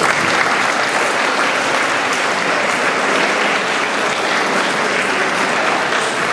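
Audience applauding: steady clapping from many hands that begins straight away and keeps an even level throughout.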